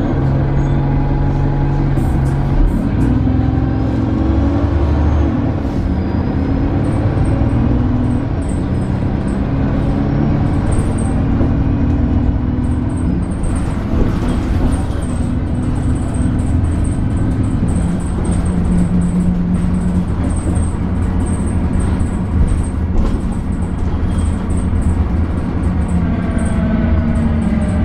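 Alexander Dennis Enviro 300 single-deck bus running on the move, its engine and drivetrain tones stepping up and down in pitch as it goes through the gears, with the weird grinding noise it is known for. A short air hiss comes about halfway through, and a quick, high, repeating chirp runs through the second part.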